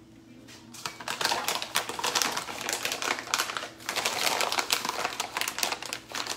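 Plastic bag of wheat gluten flour crinkling and rustling as a metal measuring cup is scooped around inside it. A dense crackle starts about a second in.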